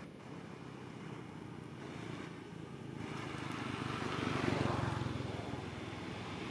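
A vehicle engine running in the background, swelling to its loudest about four and a half seconds in, then easing off.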